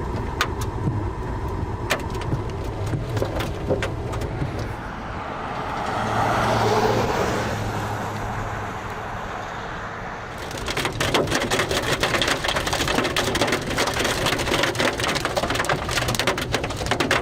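Vehicle road noise with a whoosh that swells and fades midway, then, about two-thirds of the way through, a dense rapid clatter starts: hail pelting the storm-chase vehicle.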